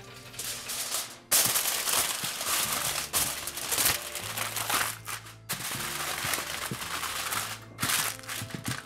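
Aluminum foil crinkling loudly as it is pressed and folded into a baking dish by hand, in several long stretches with short pauses between.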